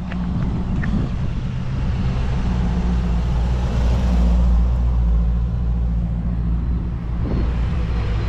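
Car engine running with a low, steady rumble that swells in loudness around the middle, then settles.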